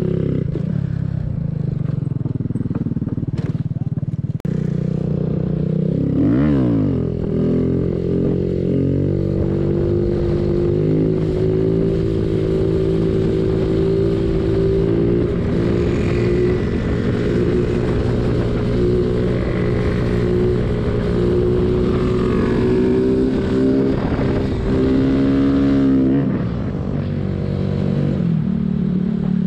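Single-cylinder 125 cc mini bike engine running steadily under way. About six seconds in the revs dip and climb again through a gear change, and near the end they rise and then fall off sharply as the throttle is eased.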